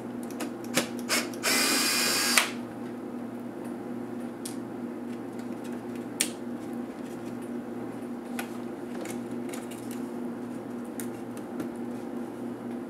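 Cordless electric screwdriver running for about a second, backing a screw out of a laptop's chassis frame, followed by a few light clicks of plastic and metal parts being handled.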